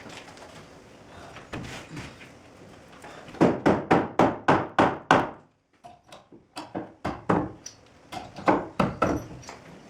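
Hand hammer striking wood: a run of about six quick blows, a short pause, then another run of blows.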